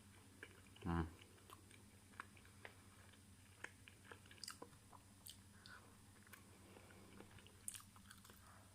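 A person chewing a mouthful of chicken burger, close to the microphone: faint, irregular wet mouth clicks. A brief vocal sound comes about a second in.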